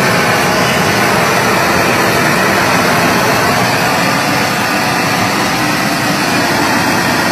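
Harbor Freight propane flamethrower torch running flat out, a loud steady rushing roar of the flame jet as it sears steaks.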